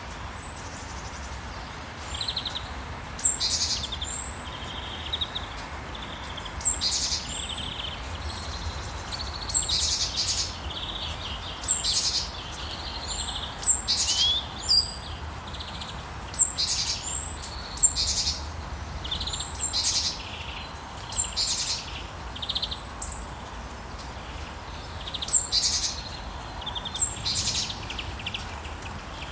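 Songbirds chirping and trilling, a short call every second or two, over a steady hiss of gentle rain.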